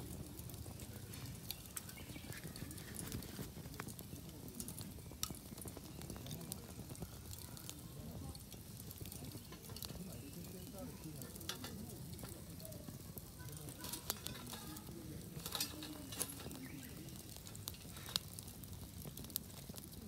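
Wood fire crackling in a small folding steel fire grill, with irregular sharp pops and snaps scattered over a low steady hiss.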